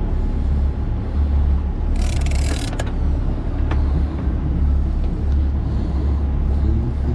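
Boat engine running steadily with a deep, even rumble. A brief hiss about two seconds in, then a couple of faint clicks.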